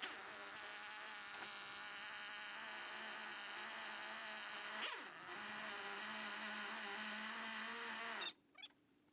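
A flying insect buzzes near the microphone with a steady, slightly wavering hum. Its pitch swoops down and back once about five seconds in, and the buzz cuts off suddenly near the end.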